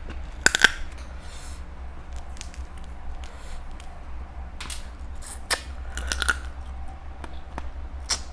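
Close-up eating sounds: chewing and crunching, with scattered sharp clicks in small clusters, about half a second in, around five and a half to six seconds, and near the end.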